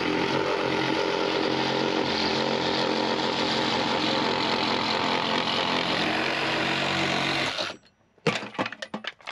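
Handheld electric power tool running steadily at one speed, then stopping abruptly near the end, followed by a few sharp knocks.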